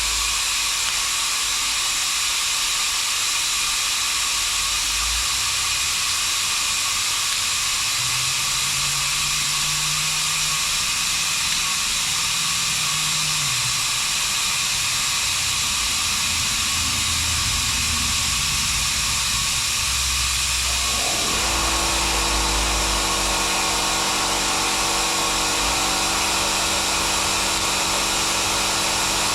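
Oxy-acetylene torch hissing steadily. About 21 seconds in, a steady hum with several tones joins the hiss and the sound gets slightly louder.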